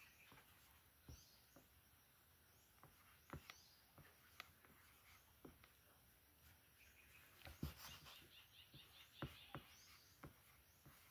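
Near silence: quiet room tone with scattered faint ticks and a few faint, high bird chirps, the clearest cluster of chirps about eight seconds in.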